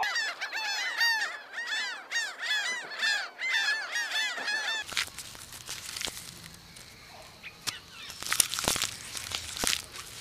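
Birds calling in rapid, overlapping honking notes, each note rising and falling, which stop abruptly about five seconds in. After that there are faint rustles and scattered sharp clicks and cracks, a few of them louder near the end.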